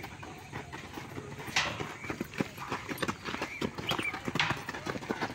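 Footsteps of several workers running on dusty packed ground as they push a long steel bar around to wind a steel spiral ring, with a few sharper knocks among the steps.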